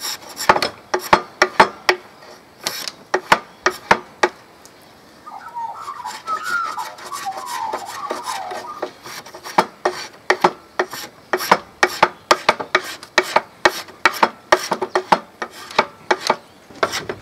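A hand-held shaping tool rasping the end of a wooden dowel haft in quick repeated strokes, tapering it to fit snugly inside a spearhead's socket. The strokes pause about four seconds in, then come back faster.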